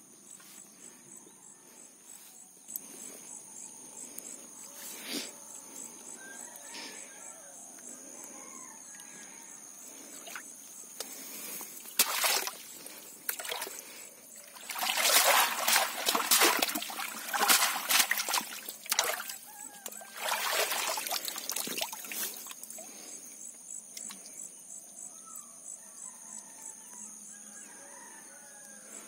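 Canal water splashing and trickling around a woven split-bamboo fish trap, in a run of heavier splashes through the middle, with quieter dribbling before and after.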